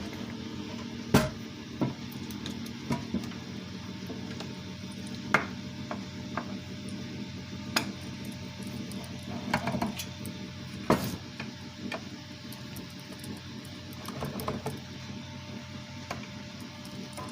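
Steady low electrical hum with scattered sharp clicks and knocks, the sound of an amplifier under bench test being handled while powered.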